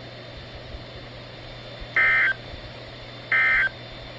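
Emergency Alert System end-of-message code from NOAA Weather Radio: two short, harsh digital data bursts a little over a second apart, starting about two seconds in, over faint radio hiss. These bursts mark the end of the warning broadcast.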